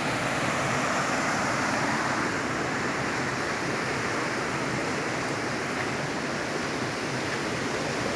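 Waterfall rushing, a steady even noise of falling water.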